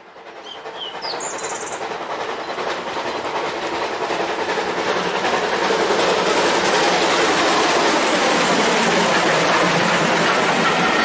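A train running on rails, its wheels clicking and rattling over the track. It fades up from silence over the first few seconds, then holds at a steady level.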